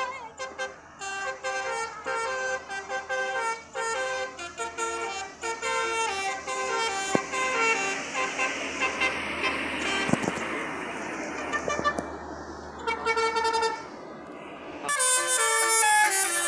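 Basuri telolet musical horn playing a tune of short held notes, one after another. About halfway through a rushing noise swells under the notes, and near the end the horn comes in louder.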